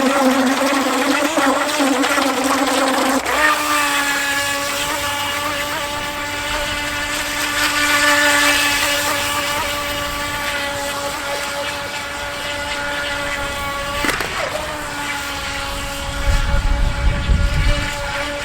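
Electric RC speedboat's motor whining at speed, its pitch wavering for the first three seconds and then holding steady, with a brief dip about fourteen seconds in. Wind buffets the microphone near the end.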